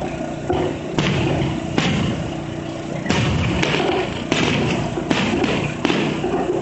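Aerial fireworks bursting: a string of booms, about eight in all, each half a second to a second apart, over continuous rumbling and crackling.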